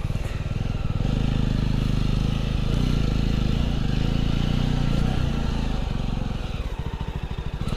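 Motorcycle engine running on the move. It picks up about a second in and eases off slightly near the end.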